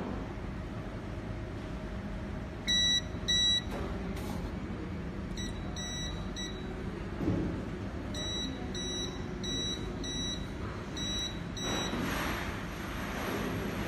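Touchscreen control panel of a 3D printer beeping as its buttons are pressed, about a dozen short beeps: two louder ones, then a run of softer ones about half a second apart. A faint high steady whine starts near the end.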